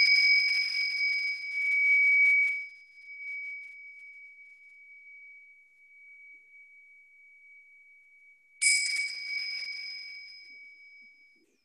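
Tingsha cymbals ringing: a clear high tone from a strike just before fades slowly over several seconds, then the pair is struck again about nine seconds in and rings away.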